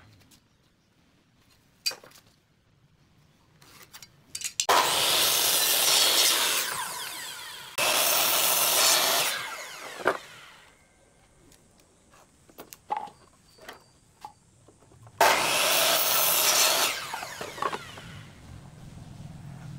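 Makita compound miter saw cutting pine boards: three loud cuts of a second or two each, the first about five seconds in and the last near fifteen seconds, each tailing off as the blade winds down. Light clicks and knocks of the board being handled come between the cuts.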